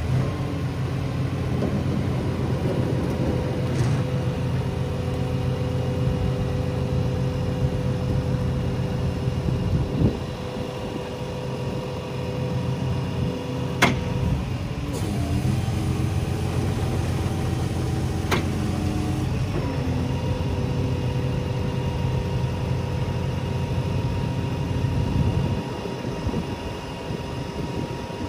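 A rollback tow truck's engine running under load while the hydraulics drive the Jerr-Dan bed, with a steady whine over the engine. Sharp snaps from the aluminium bed come about ten, fourteen and eighteen seconds in, as the bed takes the strain of pushing the truck.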